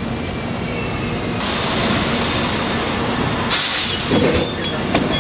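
City bus's diesel engine running as it pulls in to the stop, growing louder as it nears, then a short loud hiss of released air about three and a half seconds in as it comes to a halt.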